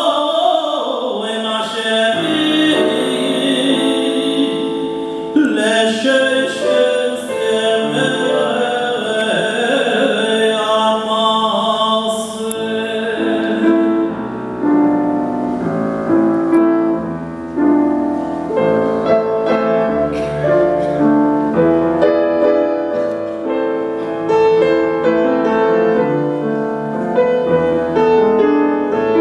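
Male cantor singing a liturgical piece in operatic style, accompanied by a Steinway grand piano. About halfway through the voice stops and the piano plays on alone.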